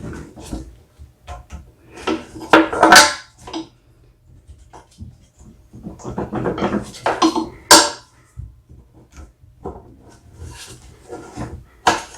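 Hands-on work noise at a snow thrower's engine: metal and plastic parts clattering and rubbing. There are two louder rasping, rattling spells about two and a half and seven seconds in.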